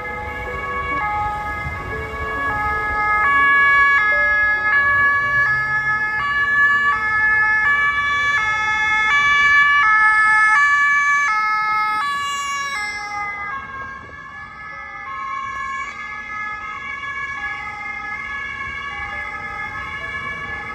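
Two-tone emergency vehicle siren of the German kind, alternating between a high and a low note roughly every three-quarters of a second. It grows louder, is loudest in the middle, then fades somewhat as the vehicle moves away.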